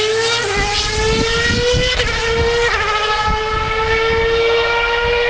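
Force India Formula One car's Mercedes 2.4-litre V8 accelerating hard at high revs. The high engine note climbs steadily and dips back twice at quick upshifts, about half a second in and again just under three seconds in.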